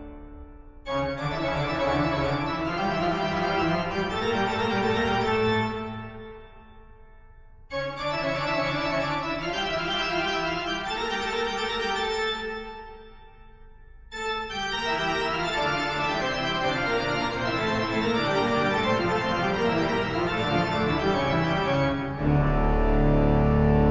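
Instrumental background music of held keyboard chords. The phrases fade away twice and restart abruptly, and a louder, deeper section comes in near the end.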